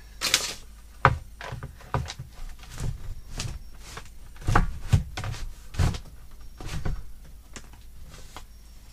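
Wooden shiplap ceiling board knocking and tapping against the ceiling boards as it is pushed up and slid into place by hand, with a short scrape near the start, then a string of irregular knocks.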